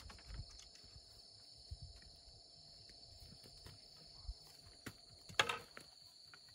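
Insects droning steadily on one high, even tone. Faint low knocks of handling run underneath, and a sharper knock or rustle comes about five and a half seconds in.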